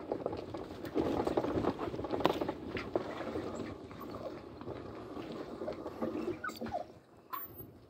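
Motorcycle on a rough dirt track: engine noise mixed with rattling and knocking over the uneven surface, loudest in the first few seconds, then easing off as the bike slows to a stop.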